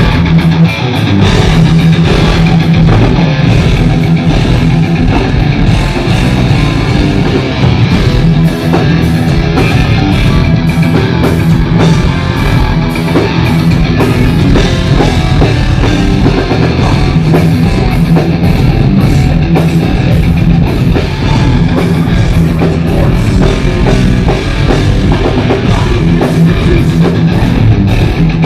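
Heavy metal band playing live: distorted electric guitars over a drum kit, loud and dense without a break.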